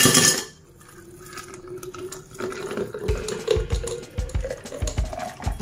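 Ice cubes clatter into a glass jug, then thick blended dragon fruit juice is poured in over the ice, glugging, with a pouring tone that rises slowly as the jug fills.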